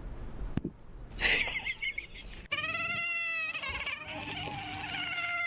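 A cat meowing: two long, drawn-out meows starting about halfway through, the first arching up and down in pitch, the second held steadier.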